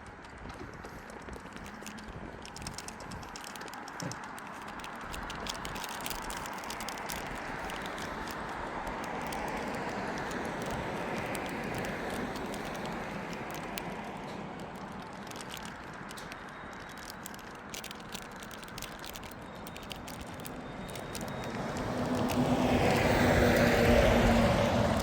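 Vehicles passing on an asphalt road, mostly tyre noise rather than engines: one swells and fades around the middle, and a louder one with a low engine hum passes near the end. Small scattered ticks sound throughout.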